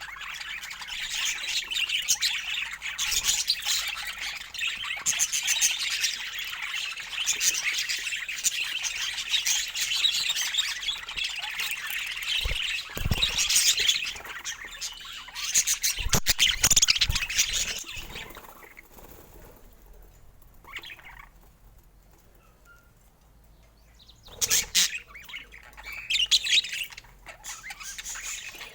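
Budgerigars chattering and chirping busily, going quieter for a few seconds about two-thirds of the way in before starting again. A few sharp knocks come around the middle.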